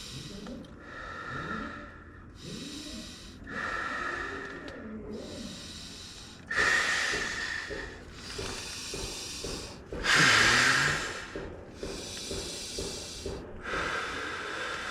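A man takes deep, heavy breaths in and out, blowing air by mouth into an inflatable sleeping mat. The inhales and long exhales alternate, and two exhales, about six and a half and ten seconds in, are the loudest. He is winded and dizzy from the effort.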